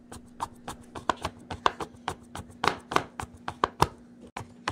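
Kitchen knife shaving a chocolate bar on a plastic cutting board: a quick, uneven run of short scraping chops against the board, pausing briefly a little after four seconds in.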